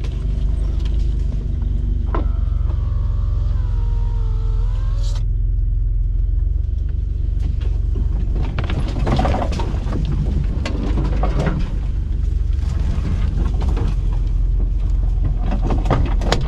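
An off-road 4x4's engine runs steadily under load while climbing a forest track, with a wavering whine for a few seconds early in the climb. From about halfway through, branches and brush scrape and knock against the windshield and body as the vehicle pushes through.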